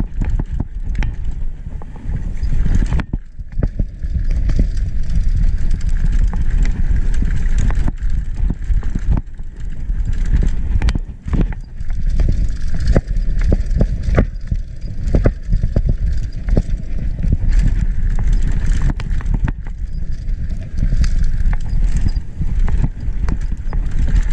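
Mountain bike descending a dirt trail: a continuous rumble of wind on the microphone, with frequent irregular knocks and rattles as the bike hits bumps and roots.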